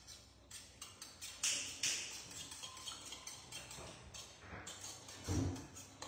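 Fork beating eggs in a bowl: a run of quick taps and scrapes against the bowl, with a short low thump about five seconds in.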